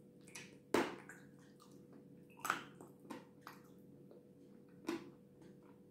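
Close-miked mouth sounds of eating soft cream cake: wet, squishy bites and lip smacks, with three sharper smacks about a second in, halfway through and near the end.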